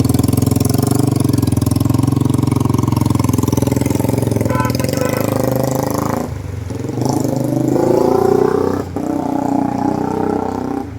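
A vehicle engine running steadily, then rising in pitch as it revs up about seven seconds in, and dropping back near the end.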